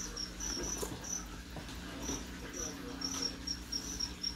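Crickets chirping: short, high chirps repeating a few times a second at uneven intervals, over a steady low hum.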